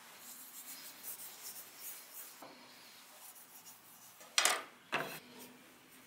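Hands rubbing and handling a carved wooden bowl, a faint dry rubbing and scratching, with two sharp knocks about four and a half and five seconds in.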